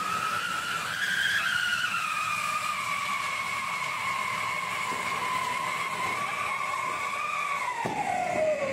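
Ground fountain firework (anar) whistling as it sprays sparks, a siren-like tone over the hiss of the burning spray. The whistle climbs to its highest pitch about a second in, holds steady, then slides down in pitch near the end as the fountain dies.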